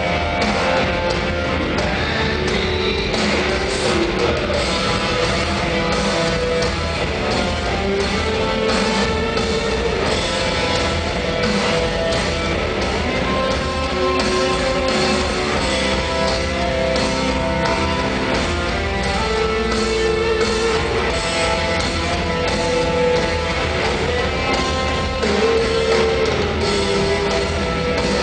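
Live rock band playing an instrumental stretch with distorted electric guitar and drums, heard from inside a large venue.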